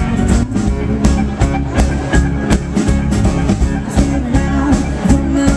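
Live band playing a song: acoustic-electric guitar and electric bass over drums keeping a steady beat.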